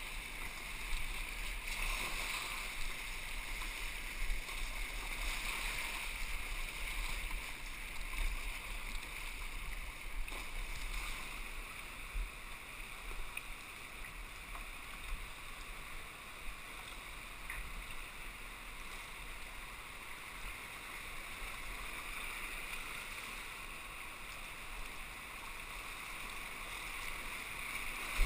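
Whitewater rapids rushing steadily around a kayak, with occasional louder splashes.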